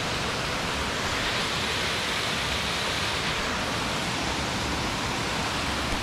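Steady rush of a river and waterfall in a jungle gorge: an even, unbroken hiss of falling and flowing water.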